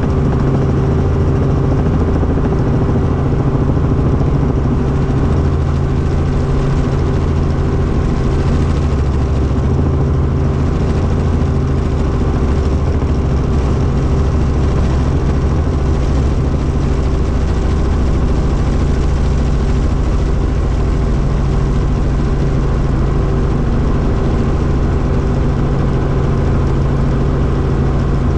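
Helicopter turbine/piston engine and main rotor running steadily, heard from inside the cabin as a constant low, humming drone.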